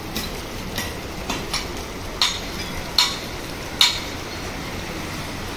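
Steady hiss of rain falling on wet concrete, with sharp metallic clinks every second or so as steel cane-carrier chain links and parts are handled and knocked together; the loudest clinks come about two, three and four seconds in.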